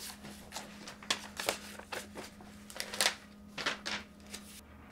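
Irregular small clicks, taps and rustles of objects being handled on a desk, with a few sharper clicks about a second in, around three seconds in and near four seconds, over a faint steady hum.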